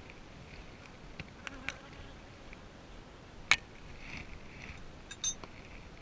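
Honeybees buzzing around an opened hive, the buzz swelling as bees fly close by. A few light clicks, and one sharp knock about three and a half seconds in.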